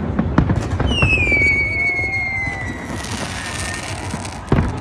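Fireworks exploding: a quick run of bangs, then a long whistle that slowly falls in pitch for about two seconds. A single sharp bang comes near the end.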